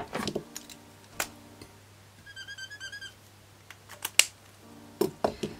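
Plastic marker pens clicking as they are set down on a table, the loudest click at the very start and a few more scattered through, with a quick run of small squeaks about halfway through as a pigment brush marker's tip is rubbed onto a plastic paint palette.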